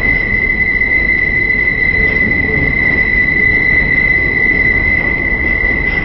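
Excursion train heard from on board: a steady, loud running rumble with a constant high-pitched whine over it.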